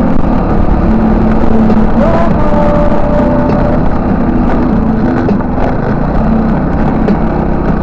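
200cc scooter's engine running as it rides along a dirt path, under a heavy, steady low rumble.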